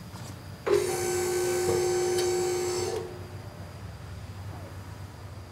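Vehicle lift's electric hydraulic pump motor running with a steady whine for about two seconds, raising the lift a little before it is let down. It starts abruptly about a second in.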